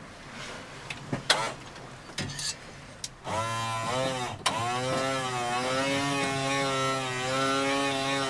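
A few knocks and clatters from a saucepan, then an electric hand blender starts about three seconds in and runs, blending a pot of soup; its motor pitch dips and wavers as the blade meets the food, then holds fairly steady.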